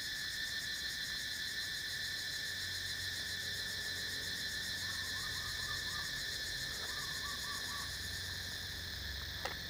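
Steady, even chorus of insects (crickets or cicadas), with a few faint chirping calls about halfway through.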